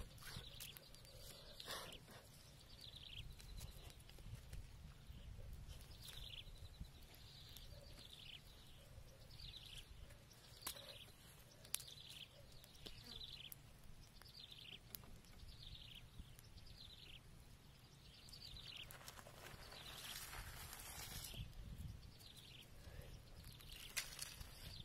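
Faint outdoor quiet with a bird repeating short, high, downward-slurred chirps about once a second. A brief rustle comes about three-quarters of the way through.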